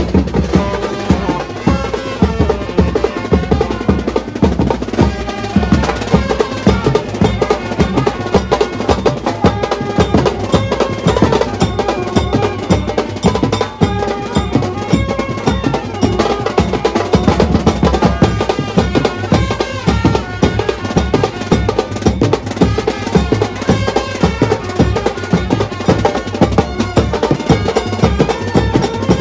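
Indian brass band playing: saxophones and trumpets carry the tune over a steady, rhythmic drum beat.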